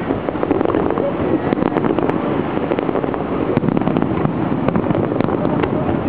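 Fireworks popping and crackling in quick, irregular succession over a loud, steady rumbling din.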